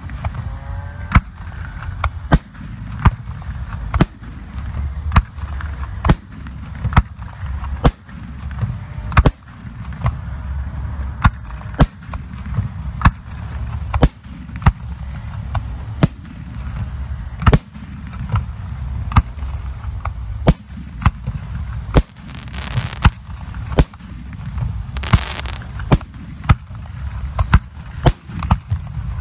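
Professional aerial firework shells bursting one after another, sharp booms roughly once a second over a continuous low rumble. Twice in the last third, a few seconds of hissing run between the bangs.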